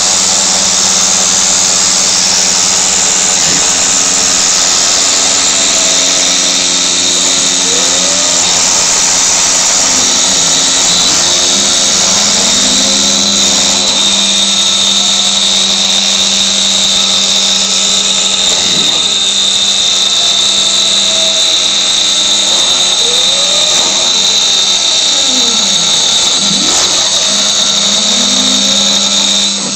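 CNC router engraving plexiglass: the high-speed spindle runs with a steady high whine and cutting hiss, while the axis motors hum underneath, their pitch sliding up and down as the machine speeds up and slows between moves. The noise drops suddenly at the end.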